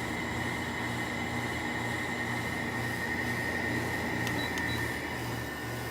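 A 2000s Sharp 6,000 BTU window air conditioner running on high cool, compressor and fan going together: a steady hum with an evenly pulsing low drone and a steady high whine over the rush of air.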